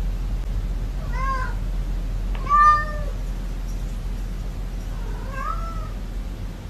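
Domestic cat meowing three times, short arched meows about a second and a half to three seconds apart, the middle one the loudest and longest. A steady low hum runs underneath.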